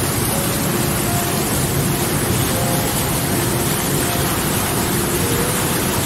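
Whitewater rapids rushing over and around rocks: a loud, steady, unbroken rush of churning water.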